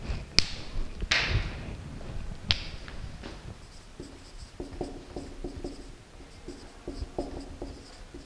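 Three sharp clicks in the first few seconds, then a marker pen squeaking across a whiteboard in short, quick strokes as numbers and letters are written, from about halfway through.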